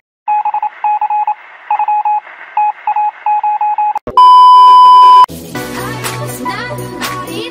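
A run of short electronic beeps, all at one pitch in an uneven rhythm, thin as through a small speaker. About four seconds in, a loud steady test-card tone sounds for about a second, then music with a bass beat starts.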